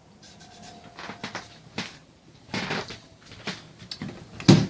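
Irregular knocks, clicks and rustles of things being handled and set down, with a louder thump near the end.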